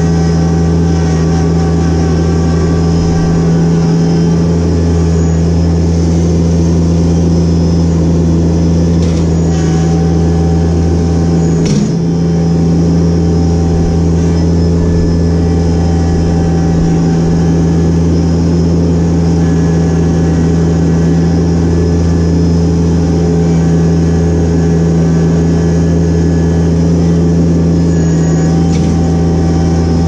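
Yanmar compact tractor's diesel engine running steadily under the operator's seat, with a brief dip and a click a little under twelve seconds in.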